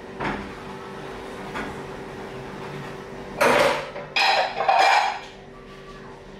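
Dishes clattering at a kitchen sink as a bowl is handled, with a few faint knocks early on and a run of loud clinks and clatters from about three and a half to five seconds in, over a faint steady hum.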